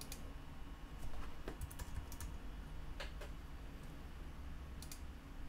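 Computer keyboard keys tapped in a few short bursts of typing, faint, over a steady low hum.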